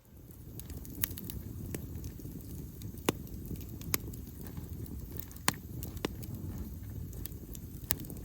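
Wood campfire burning, a steady low rustle of flames with a handful of sharp crackling pops from the wood.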